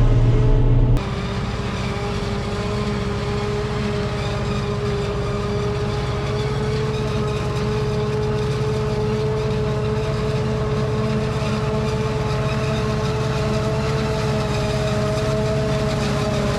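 Harvest machinery running steadily: a heavy engine drone with a steady whine held over it. The sound changes abruptly about a second in, then runs on unchanged.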